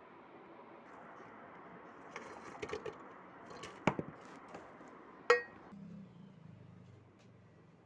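Metal cookware clinking and knocking: a few light knocks, a sharper one about four seconds in, and the loudest, ringing metallic clink about five seconds in. A steady hiss sits beneath and stops abruptly near six seconds.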